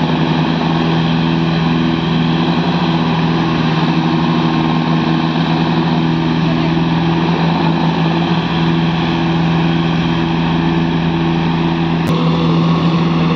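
Tractor diesel engine running steadily at an unchanging speed, with a brief click near the end.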